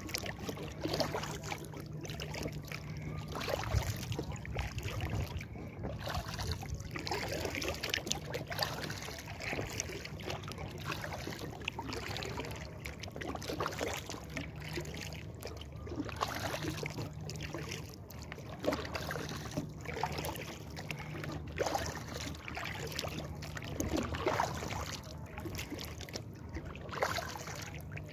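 Lake water splashing and trickling around an inflatable kayak as it is paddled, with uneven splashes every few seconds.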